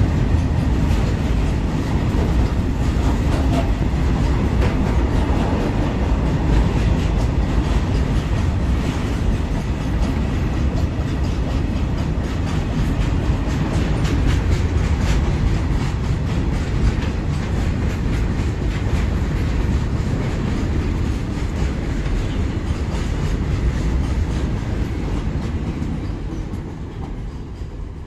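Goods train of open-top steel box wagons rolling past close by: a steady rumble of steel wheels on rail with rapid clickety-clack over the rail joints. It fades away over the last few seconds as the end of the train recedes.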